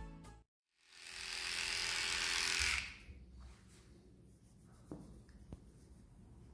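Cordless electric dog clipper buzzing as it is run over a dog's head and muzzle. It is loud for about two seconds starting about a second in, then runs more quietly with a few light clicks.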